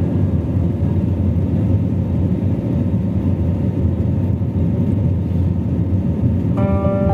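Steady low rumble of jet engines and rushing air heard inside an airliner cabin during the climb after takeoff. Background music with held notes comes in near the end.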